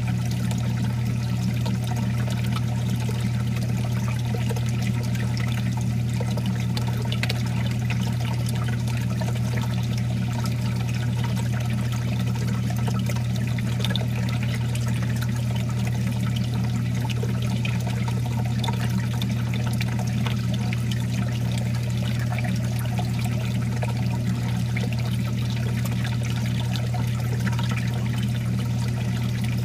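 Water running steadily into a reef aquarium's sump, an even trickling and pouring with a steady low hum under it.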